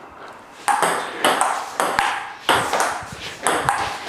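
Table tennis ball clicking back and forth in a rally, paddle and table hits about every half second, starting under a second in.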